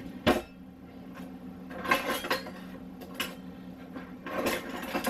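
Metal kitchen utensils clattering and clinking, as when rummaging through a cluttered kitchen drawer: a sharp knock just after the start, then irregular clusters of clinks. A low steady hum runs underneath.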